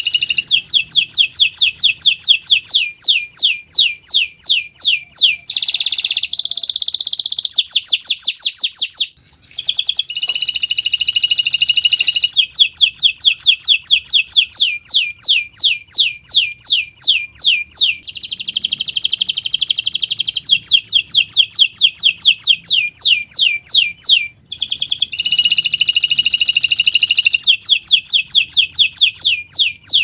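Domestic canary singing in full, continuous song: long trills of rapidly repeated, sweeping high notes alternating with denser warbled passages, with brief pauses about nine and twenty-four seconds in.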